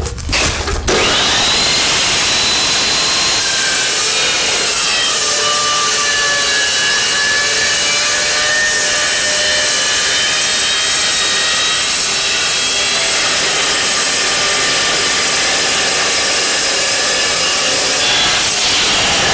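Evolution Rage 2 multipurpose chop saw cutting through steel frame stock. A loud, steady cutting noise with high ringing tones starts about a second in and runs on without a break.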